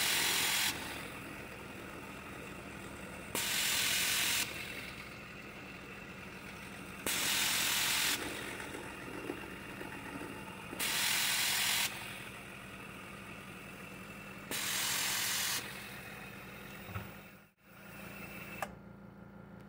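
Homemade epoxy-granite CNC mini mill milling mild steel with an end mill: steady spindle and cutting noise with a low hum, broken about every three to four seconds by a loud hiss lasting about a second. Near the end the sound cuts out briefly, then the machine runs on more quietly.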